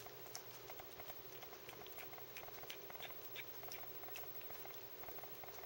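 Cat chewing and crunching an insect it has caught: faint, irregular small clicks and crackles, several a second.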